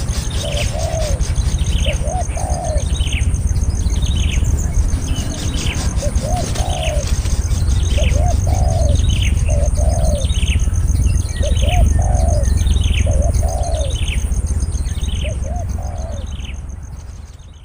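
Birds calling: a short falling chirp repeated about one and a half times a second, mixed with lower arched notes, often in pairs. Under them runs a steady high insect trill and a low rumble. The whole fades out near the end.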